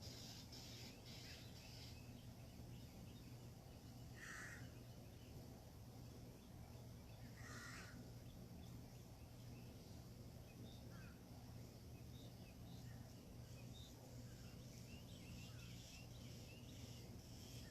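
A bird gives two short, harsh calls about three seconds apart, over faint scattered chirping and a steady low hum.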